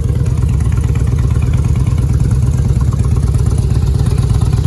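Car engine idling close by, a loud steady low rumble with rapid even firing pulses.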